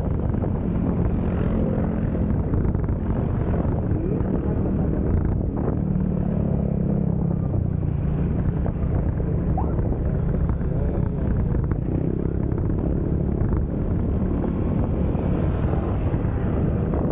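Yamaha XMAX 300 scooter being ridden at road speed: its single-cylinder engine runs steadily, its pitch shifting a little, under a steady rush of wind and road noise.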